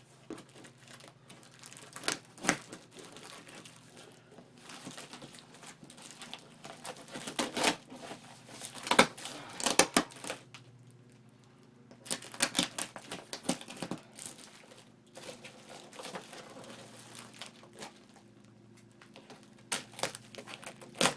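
Packing tape being pulled and torn on a cardboard shipping box, with the tape and cardboard crinkling and rustling in irregular bursts, the loudest about halfway through.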